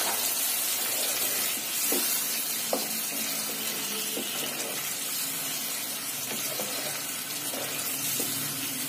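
Watery masala gravy sizzling in a kadhai on a high flame, freshly thinned with half a bowl of water, while a wooden spatula stirs it with a few light knocks against the pan.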